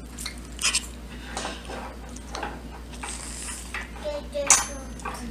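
Metal fork cutting into a baked pancake and clinking and scraping against the plate, with a sharp ringing clink about four and a half seconds in.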